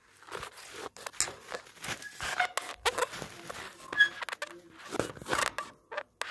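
A budgie pecking and husking food off a fingertip: a rapid, irregular run of small beak clicks and cracks, with a couple of brief soft chirps about two and four seconds in.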